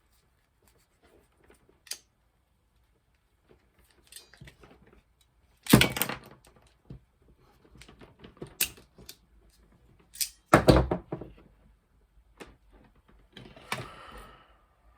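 Crimping tool working an MC4 connector contact on solar cable: sharp clicks and two loud metal clunks about six and eleven seconds in as the jaws close, with handling knocks and a brief scrape near the end.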